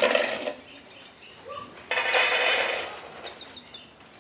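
Two short rushing noises, the first at the very start and the louder, longer one about two seconds in. After them a small bird chirps a quick series of short, high, falling notes near the end.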